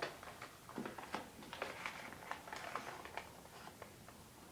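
A sheet of paper being folded and creased by hand, with faint, irregular crinkles and rustles.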